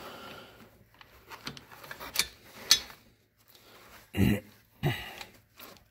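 A few sharp light clicks and knocks from handling an AR-15 upper receiver, with two short vocal sounds from the man about four seconds in.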